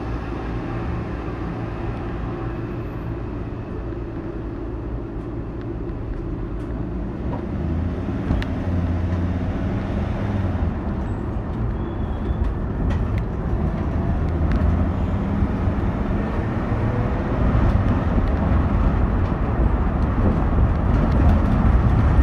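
A moving car's engine and road noise heard from inside the cabin: a steady low rumble that grows gradually louder.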